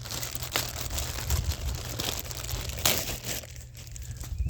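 Packaging crinkling and rustling in irregular crackles as the parts of a cold air intake kit are handled and pulled from the box, dying down near the end.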